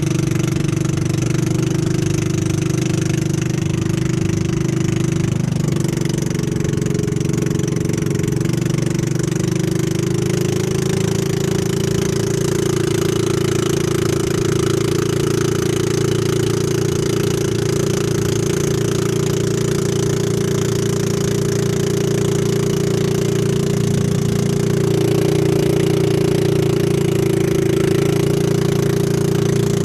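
Pump boat's engine running steadily under way, its pitch shifting slightly a few times.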